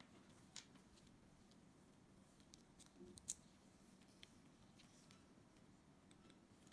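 Small plastic building bricks clicking as gloved hands press them onto a toy vehicle: a few faint, sharp clicks, the loudest about three seconds in, over a faint steady hum.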